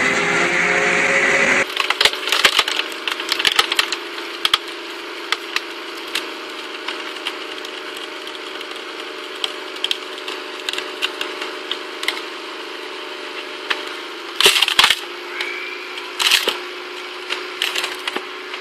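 A screw-cone log splitter driven off a car's wheel hub boring into a log, which cracks and splinters again and again over a steady low hum from the turning drive, with the two loudest cracks near the end. In the opening second and a half a firewood processor runs loudly, forcing wood through a star-shaped splitting wedge.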